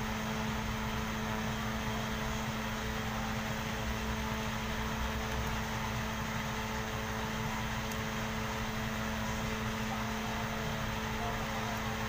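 Steady machine hum with a constant low tone over a faint rushing noise, unchanging throughout.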